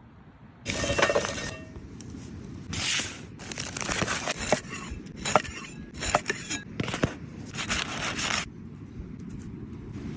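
Cooking gear being handled: a run of short scraping bursts, about a second apart, with sharp clicks and knocks among them.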